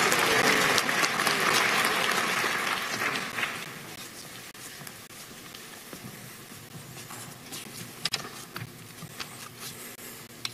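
Audience applause in a large hall, dying away about three and a half seconds in. After that the room is quiet apart from a few faint clicks and knocks.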